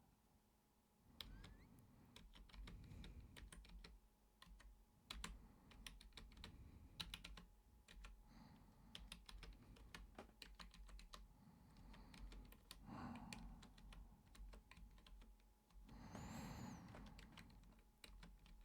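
Computer keyboard typing up close: quick, irregular key clicks in short runs, with two soft breath-like rushes past the middle and near the end.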